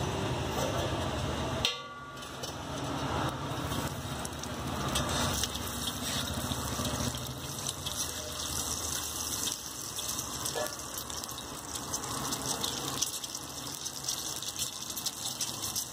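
Oil sizzling on a flat iron griddle as cut boiled eggs fry, with a metal spatula clicking and scraping against the iron. For the first two seconds or so there is street traffic noise, which cuts off suddenly.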